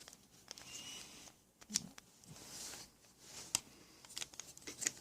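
Faint handling sounds of a small plastic voltage-tester pen: a few soft clicks and light rustling, with no steady beeping, so the tester is not signalling though switched on, which the owner takes as a sign that it is junk.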